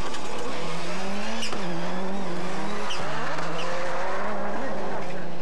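Rallycross supercar engines racing, the engine note rising and falling as the cars accelerate and shift through the corners, over a steady rush of tyre and track noise.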